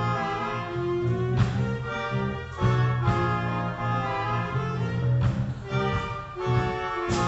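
A school band of saxophones, trumpets, keyboard, electric bass and drum kit playing a piece: held wind chords over a steady bass line, with a few sharp drum hits.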